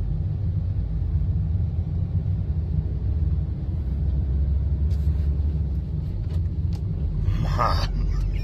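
Low, steady rumble of wind buffeting the microphone, with a few faint clicks in the second half and a brief voice near the end.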